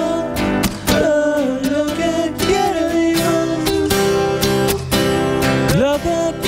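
Two acoustic guitars strummed steadily under a sung vocal melody: a live acoustic song.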